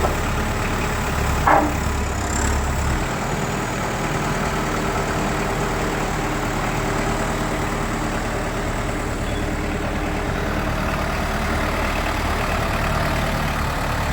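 Kubota M59 backhoe's diesel engine running steadily while it handles a milling machine on its loader forks, with one short knock about a second and a half in.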